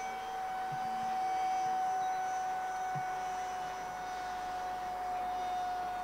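Electric ducted fan of a 3D-printed RC seagull jet running in flight: a steady, even whine.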